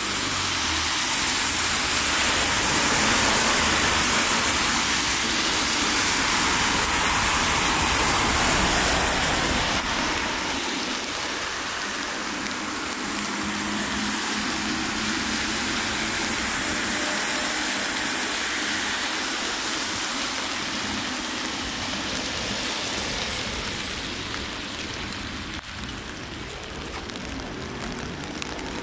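Steady hiss of rain falling on wet city streets, with a low road-traffic rumble under it that fades after about ten seconds.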